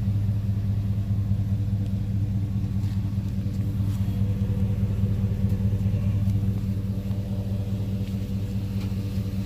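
Van engine idling: a steady, unchanging low hum.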